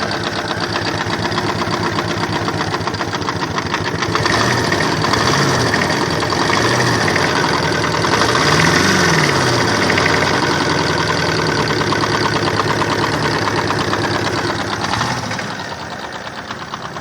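Yamaha SR125's single-cylinder four-stroke engine running just after a carburettor rebuild, idling and then revved up and down several times from about 4 to 15 seconds in before settling back to idle.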